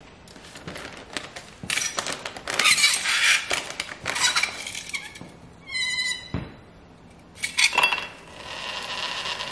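Metal tongs rummaging through a plastic bag of dry ice, crinkling the bag and clinking the frozen chunks together. About six seconds in there is a short high squeal of dry ice against the metal tongs, and near the end a chunk of dry ice clinks down into an empty glass tumbler.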